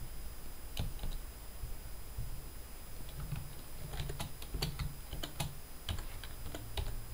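Computer keyboard typing: a few separate key presses, then a quicker run of keystrokes from about three seconds in.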